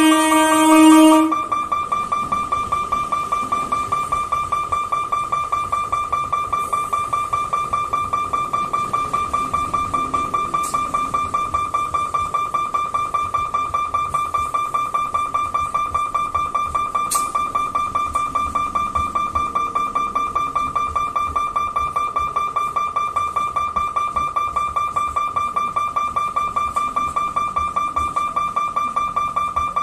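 A horn blast ends about a second in. After it, a level-crossing warning alarm sounds: one steady high electric tone, pulsing quickly and evenly.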